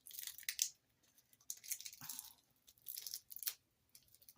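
Plastic wrapping crinkling and rustling in short irregular bursts as it is handled and pulled off an item.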